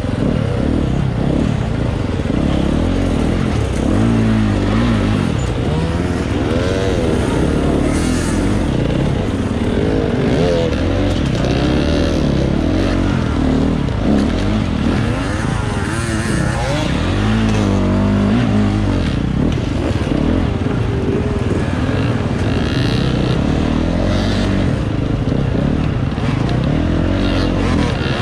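Dirt bike engine under race load, revving up and down over and over as the throttle is worked and gears change, with the pitch rising and falling every second or two.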